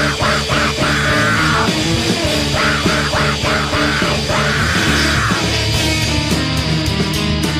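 Screamo/noise-rock band recording: distorted guitars, bass and drums with screamed vocals. The screaming stops about five seconds in, and the band plays on with sharp drum and cymbal hits.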